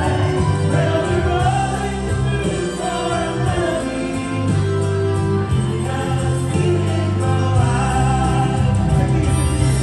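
Several voices singing a song together to a piano and bass backing, loud and continuous.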